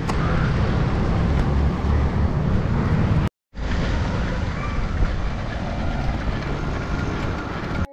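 Steady low rumble of road noise and wind on the microphone while cycling in traffic. It cuts out for a moment about three seconds in.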